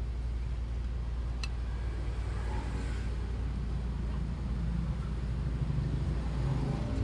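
Steady low background rumble, with a single faint click about a second and a half in from screwdriver work on a distributor cap.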